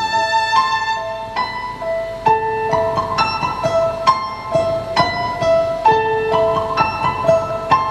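Piano-sound keyboard playing a slow melody of single struck notes that ring on, the figure repeating.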